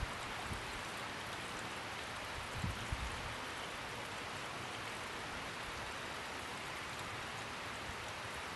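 Light rain falling: a steady, even hiss, with a couple of brief low thumps about three seconds in.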